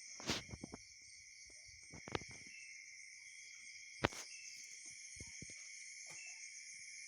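A steady, high-pitched chorus of insects chirping, with a few sharp knocks or clicks: a short cluster near the start, another about two seconds in, and a single loud one about four seconds in.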